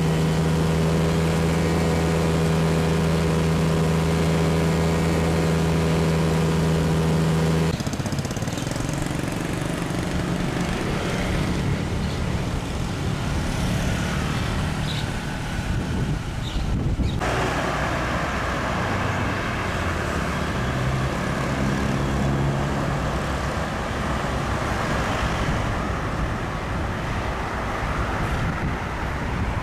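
Steady drone of a light aircraft's propeller engine, which cuts off abruptly about eight seconds in. Road traffic noise follows.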